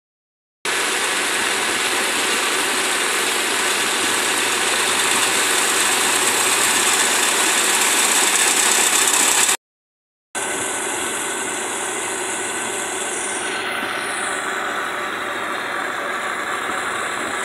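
Combine harvester running steadily while cutting rice, its engine and threshing machinery making a dense, even mechanical noise. The sound cuts out briefly twice, and after the second break it is duller, with the combine unloading grain through its auger arm into a trailer.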